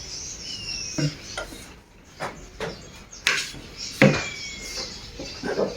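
Dishes and utensils being handled: a string of uneven light knocks and clinks.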